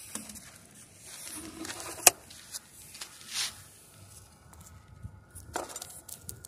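Handling noise from a car wheel and tyre being lifted and set down on pavement: scuffs and rustles with one sharp knock about two seconds in.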